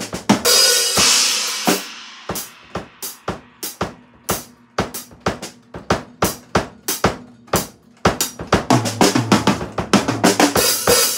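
Drum kit played with sticks. A cymbal crash about half a second in rings out, followed by scattered drum hits, then a busier run of snare and bass drum hits with another cymbal crash over the last few seconds.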